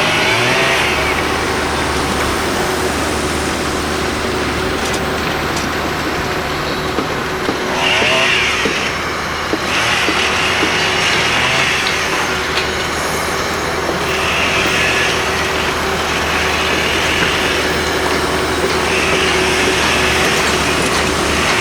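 Construction-site noise: heavy machinery engines running steadily, with a higher hissing or grinding noise that comes and goes every few seconds and a few sharp knocks.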